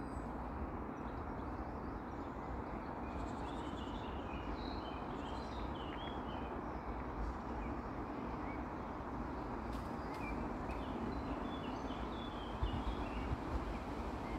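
Steady outdoor background rumble with small birds chirping in clusters of short high calls, from about three seconds in and again from about ten seconds in.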